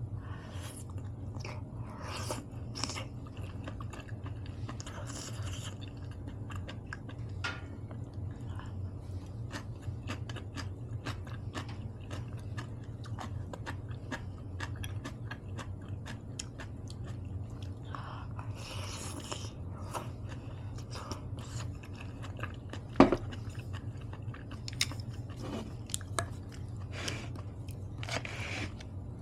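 A person chewing a meal of rice, seaweed soup and kimchi close to the microphone: steady wet mouth clicks and some crunching, with a sharp click about 23 seconds in. A steady low hum runs underneath.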